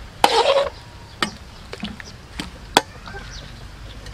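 Sliced greens dropped into a pot of braising liquid with a wet rustle about a quarter-second in, followed by a few sharp knocks of a utensil against the pot.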